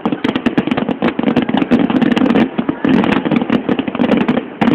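Aerial fireworks going off in a dense, rapid crackle of many small pops and bangs.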